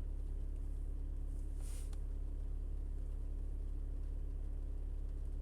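Steady low hum of a diesel car's engine idling, heard from inside the cabin, with a brief faint hiss about two seconds in.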